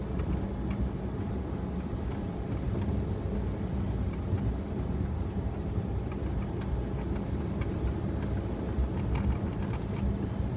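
Steady road and engine noise heard from inside a moving car, a low rumble with a constant hum and a few light ticks.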